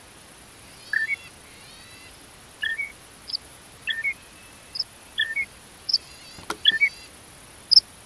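Great grey shrike singing: a loose series of short, separate notes, some thin and high, mixed with rough, raspy phrases about a second in and again near the end. A faint steady high hiss lies under it.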